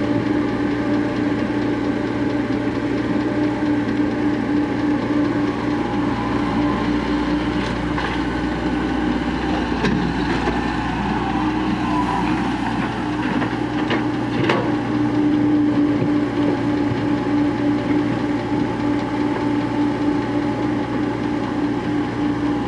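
Heavy diesel engine of earthmoving machinery running steadily, with a few brief sharp knocks in the middle.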